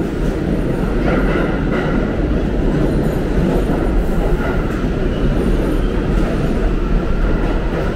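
New York City subway train running in the station at the platform, a loud, steady rumble of wheels and motors.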